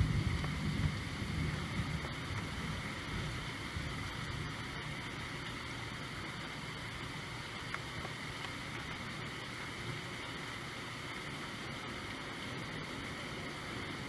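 Steady rainfall, an even hiss. A low rumble in the first couple of seconds dies away.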